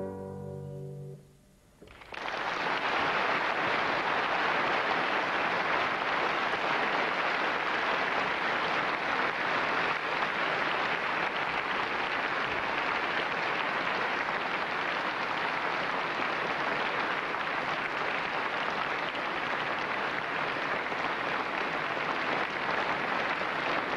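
The last notes of an acoustic guitar die away, then an audience applauds steadily, the clapping starting about two seconds in.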